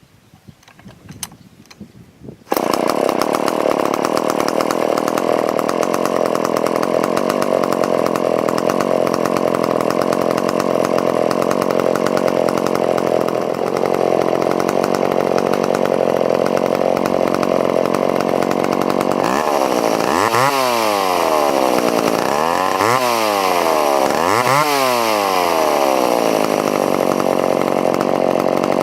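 A McCulloch Pro Mac 10-10 two-stroke chainsaw comes in abruptly about two and a half seconds in. It runs loud and steady at high revs. Near the end the revs drop and climb back three times in quick succession before it settles back to a steady high speed.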